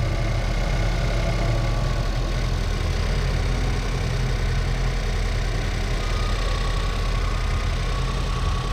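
Ford Transit Connect's 1.6-litre EcoBoost turbocharged four-cylinder engine idling steadily, heard from the open engine bay.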